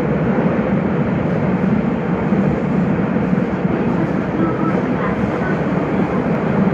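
Nagoya subway Higashiyama Line 5050-series train running at speed, a steady rumble of wheels and running gear heard from inside the front car.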